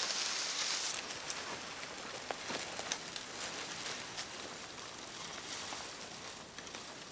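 Dead branch with dry twigs dragged through brush and over the ground. A loud rustling scrape fades about a second in, then comes fainter crackling with scattered small snaps.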